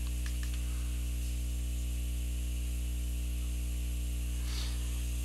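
Steady low electrical mains hum with its overtones, with a faint brief scratch near the end.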